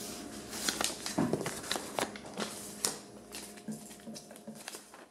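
Small-room sound of things being handled: irregular clicks, knocks and rustling over a steady electrical hum, fading out near the end.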